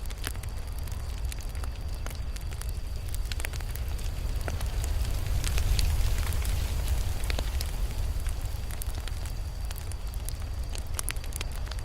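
Campfire burning: wood crackling and popping in irregular sharp snaps over the low rumble of the flames, growing a little louder around the middle.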